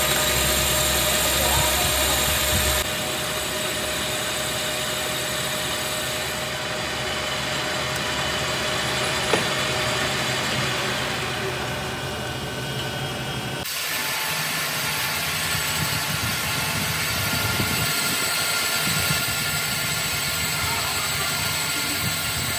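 Metal lathe running and turning a cast-iron brake disc, the cutting tool skimming its face with a steady machining noise. The sound shifts abruptly about three seconds in and again about fourteen seconds in.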